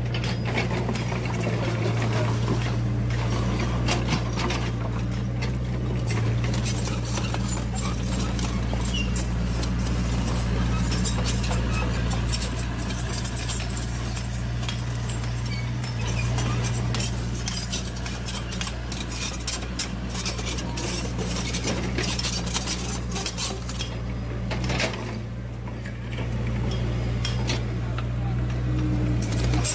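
Remote-control toy construction machines working in sand: a steady low motor hum with many small clicks and rattles, thickest in the middle stretch.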